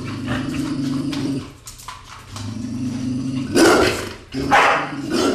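American bulldog growling in two long, low rumbles, then giving two loud barks near the end.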